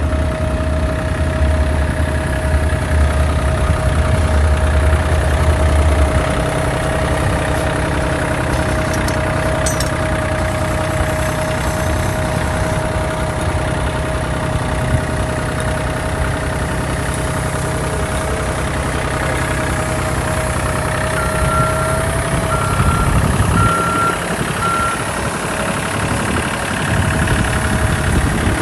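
Heavy vehicle or construction machine engine running steadily with a constant whine. A short series of about four beeps, roughly one a second, comes near the end.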